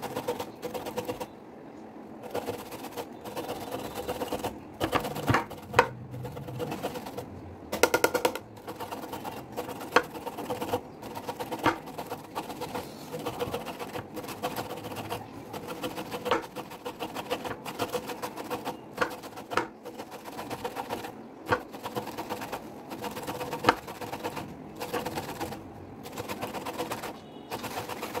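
Food being grated on a flat metal hand grater: a long run of quick, repeated scraping strokes.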